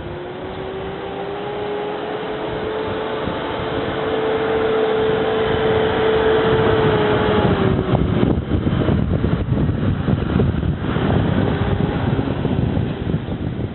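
A steady motor hum over rough background noise, its pitch creeping slowly upward before it drops away about eight seconds in; after that, uneven rumbling and crackling noise.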